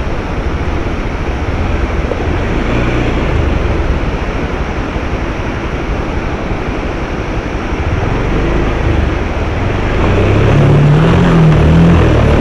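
Motorcycle engine working in low gear as the bike fords a shallow, rocky river, over the rush of the stream. About ten seconds in, the engine note rises, wavers and gets louder as the rider opens the throttle.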